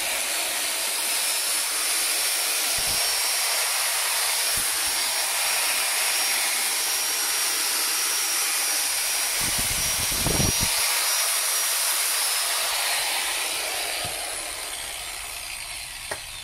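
DCA AZE110 1200 W handheld stone cutter, a 13,000 rpm motor with a 110 mm blade, running free with no load: a loud, steady whir with a high whine. About twelve seconds in it is switched off, and the whine falls away as the motor spins down.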